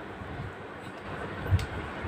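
Raw chicken pieces being dropped into a plastic bowl of thick yogurt marinade, with a soft low thud about one and a half seconds in as a piece lands.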